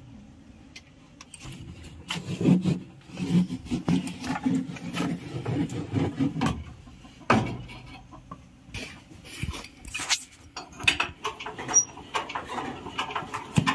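Scattered knocks and clanks of hand tools on metal and wood, as work goes on around a walk-behind power tiller. A louder knock comes about halfway through. Under the knocks, in the first half, runs a low pitched sound that breaks up again and again.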